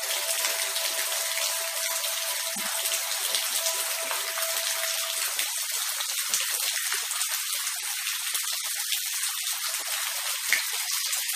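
Steady, even rain hiss with no thunder. A faint steady tone under it fades out about halfway through.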